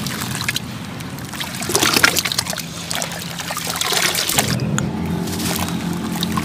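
Hands crumbling and squeezing wet sand-cement chunks in a metal basin of water: splashing, trickling water and gritty crumbling, loudest about two seconds in.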